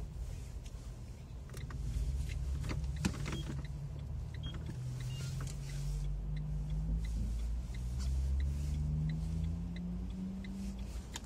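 Car engine and road rumble heard from inside the cabin, the engine hum climbing in pitch as the car speeds up. A few sharp knocks come about three seconds in, and a faint regular ticking runs through the middle.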